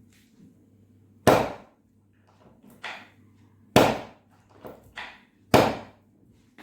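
Three loud, sharp impacts about two seconds apart, with a few fainter knocks between them, from hands-on chiropractic treatment.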